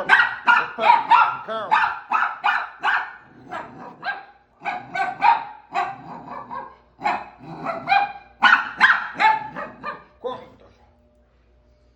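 Small pinscher puppy barking in quick runs, about two to three barks a second with a few short pauses, stopping about ten and a half seconds in.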